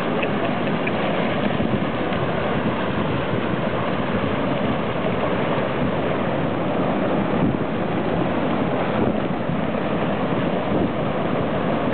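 Muddy flash-flood water rushing down a wide sandy river channel, carrying brush and debris: a steady rushing noise, with some wind buffeting the microphone.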